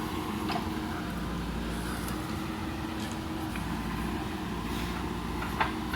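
JCB backhoe loader's diesel engine running steadily, with a short sharp click about half a second in and a louder one near the end.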